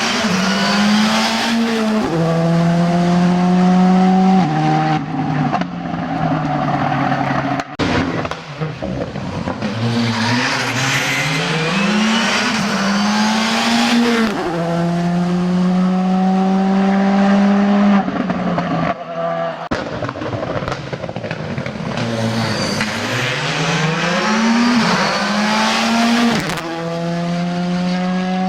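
Rally car engine working hard at high revs, its pitch climbing and then stepping down at each upshift, with lifts and short pauses in between, repeated several times, with some tyre squeal.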